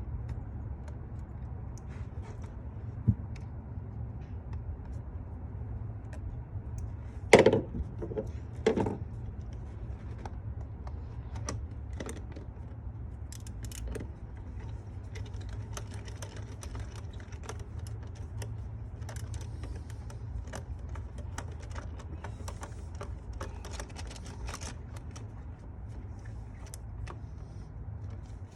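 Hand tools being handled during a spark plug change: scattered small metallic clicks and clinks, with two louder knocks about seven and nine seconds in, over a steady low hum.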